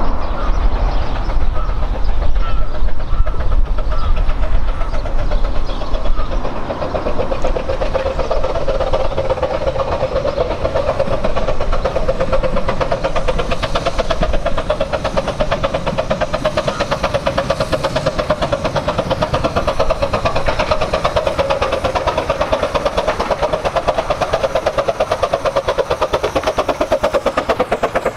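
A 15-inch-gauge steam locomotive approaches with its train of coaches and runs past close by. A low rumble fills the first few seconds, then a steady sound with a fast pulsing holds to the end.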